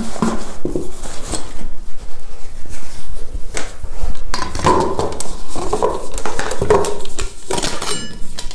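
Metal pot and nested parts of a backpacking stove cooking system clinking and knocking, with the rustle of its fabric cover as they are pulled out and handled.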